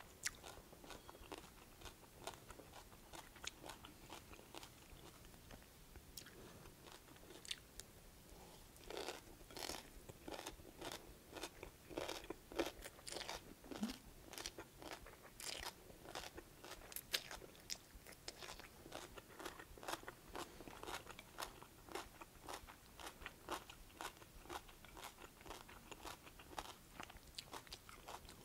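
Faint chewing and crunching of a kohlrabi-noodle stir-fry with carrots and bean sprouts, a run of short, irregular crunches and mouth clicks.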